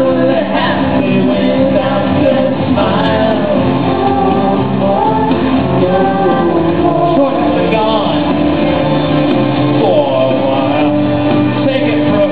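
Live band playing a song, with a voice singing over guitar and steady backing chords.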